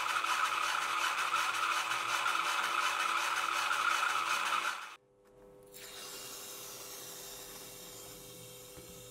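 Small DC gear motor running a homemade syringe-piston air compressor, whirring with a fast, even clatter as it pumps the piston back and forth. It cuts off suddenly about five seconds in, and a much quieter steady hum follows.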